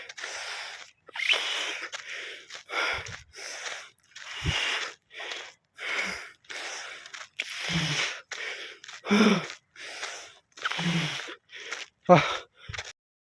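A man breathing hard through the nose and mouth after a hard run, in short loud puffs about once a second, some of them carrying a bit of voice. It is the heavy breathing of recovery from the exertion. The sound cuts off abruptly near the end.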